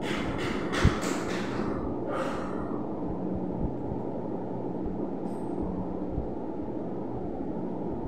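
Steady low rumbling background noise, with a few breaths or sniffs close to the microphone in the first couple of seconds and a soft thump about a second in.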